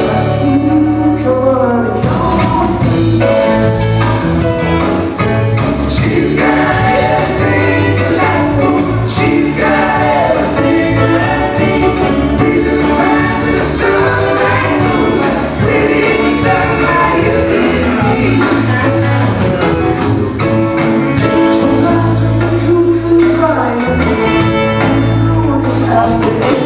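Live band playing dance music on electric guitars, drums and keyboard, with a voice singing over it.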